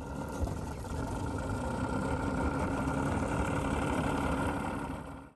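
Boat outboard motor running steadily.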